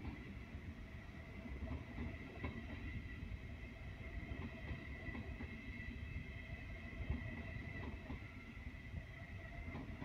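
Rhein-Ruhr-Express (RRX) Siemens Desiro HC double-deck electric train passing through the station without stopping: a steady low rumble of wheels on track with a few faint clicks.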